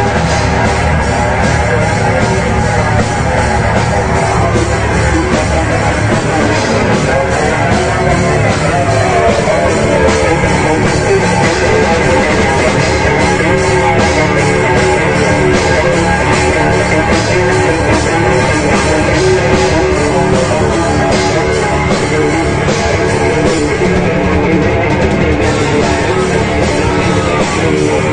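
Heavy metal band playing live: electric guitar over a drum kit, loud and unbroken.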